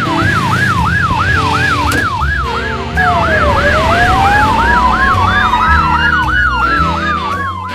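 Police siren yelping: a fast, evenly repeating rise-and-fall sweep, about three to four a second. About three seconds in, a second siren joins with a slow wail that dips, climbs and then falls away. Music plays underneath.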